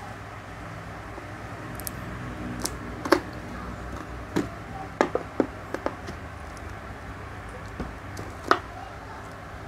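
Hard plastic motorcycle tail-light housing knocking and clattering against a wooden tabletop as it is handled: scattered sharp taps and knocks, the loudest about three seconds in, over a steady low hum.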